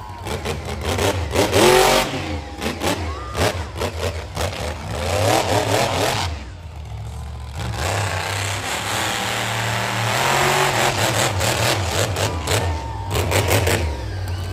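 Monster truck's supercharged alcohol-fuelled engine revving hard in repeated run-ups, the pitch rising and falling; the throttle drops off briefly about six seconds in, then the engine runs up and holds high again.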